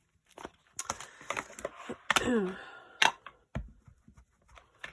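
Paper craft pieces being handled on a table: rustling, crinkling and several sharp taps and clicks, with a brief wordless vocal sound about two seconds in.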